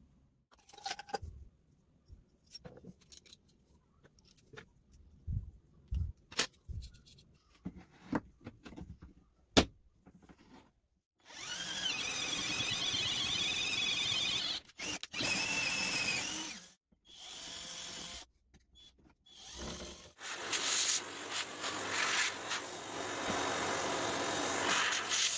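Scattered knocks and clicks of the metal hinge jig and its toggle clamp being handled, then a power drill with a 35 mm Forstner bit running, its whine wavering as it bores a hinge-cup hole in pine through the jig's guide. After a few short bursts, a second long run of drilling near the end.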